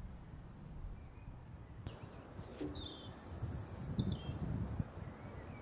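Small birds chirping in short high phrases, most of them about three to four seconds in, over a low steady outdoor rumble.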